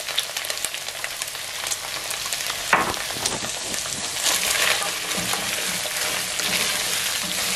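Red onions frying in hot cooking oil in a sufuria pot, sizzling steadily, with a spoon scraping and clicking against the pot as they are stirred. One sharper knock about three seconds in.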